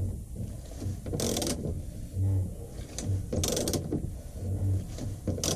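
Hand socket ratchet being worked on a bolt: short runs of quick pawl clicks on the return strokes, three runs about two seconds apart.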